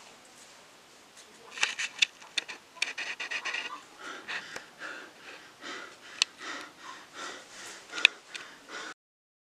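A man panting and gasping in distress, quick breaths about two a second, with a few sharp clicks among them. It cuts off suddenly near the end.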